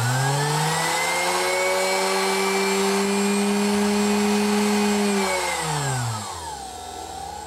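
Singer 286K sewing machine's electric motor, off the machine, running smoothly on its foot pedal. It holds a steady hum at full speed, then slows with a falling whine and winds down a little after five seconds in.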